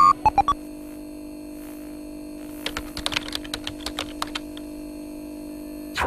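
Sound-design effects for an old TV-screen animation: a steady electronic hum with a few short beeps at the start, then a run of quick irregular clicks like typing from about three to five seconds in, and a short burst as the screen switches off to a line at the end.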